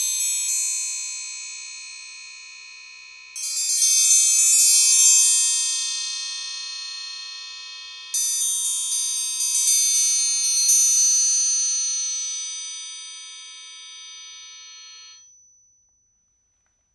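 12-inch Shipway Mk 2 triangle struck with a beater, ringing bright and long with many high overtones. A strike comes at the start, a fast roll about three seconds in (the loudest part), and another run of strikes about eight seconds in. The ring is then left to fade and is damped suddenly about fifteen seconds in.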